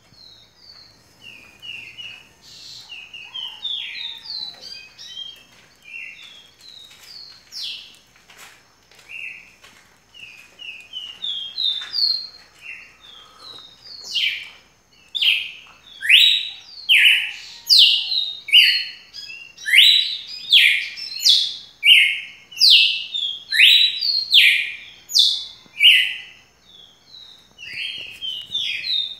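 Songbirds singing in a dawn chorus: several birds chirp and twitter faintly at first, then from about halfway through one nearby bird sings loudly, a series of quick sweeping notes about one a second.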